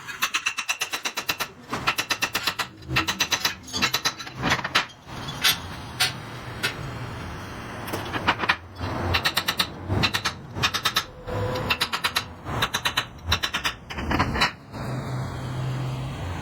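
Bursts of rapid mechanical rattling, each about a second long, repeating many times over a steady workshop machine noise.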